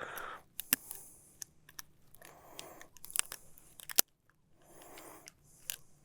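Scattered sharp clicks and short rustles of a popper's hooks and a caught tailor being handled while the deeply swallowed lure is worked out of its mouth.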